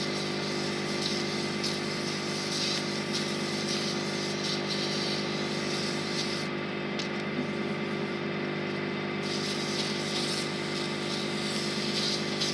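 Lathe motor running steadily with a hum while fine 400-grit abrasive paper is held against the spinning glue-finished pen blank, giving a light sanding hiss that eases for a few seconds in the middle.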